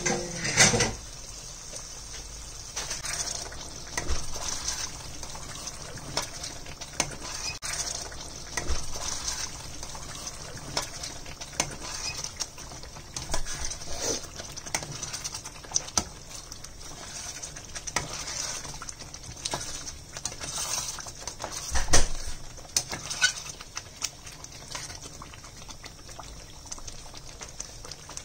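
Egg curry simmering and sizzling in a stainless steel pan: a steady hiss with many small irregular pops, and a spatula stirring and scraping through it now and then. There are a few sharper knocks, the loudest about 22 seconds in.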